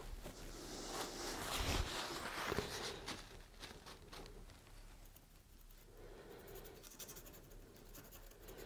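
Fine paintbrush scratching and dabbing black wash onto a painted model-layout surface: soft, scratchy strokes, busiest in the first three seconds and fainter after.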